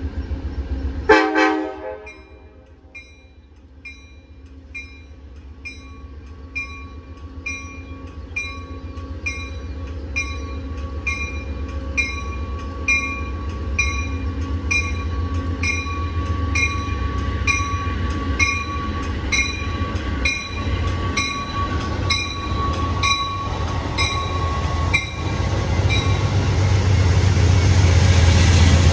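Amtrak push-pull passenger train arriving at a station: one short horn blast about a second in, then its bell ringing steadily, a strike roughly every 0.8 s, while the rumble of the train grows louder as it draws in and the coaches roll past near the end.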